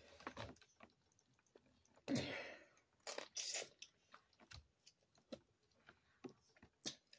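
Boiled crawfish being peeled by hand and eaten: scattered small clicks and crackles of shell breaking, with chewing and a few louder short bursts about two and three and a half seconds in.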